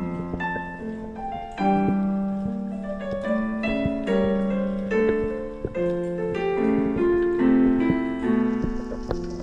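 Background piano music: a melody of struck notes over sustained chords.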